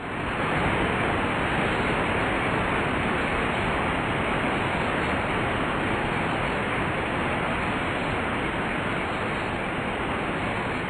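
Waterfall: a steady, even rush of falling water that fades in at the start and then holds unchanged.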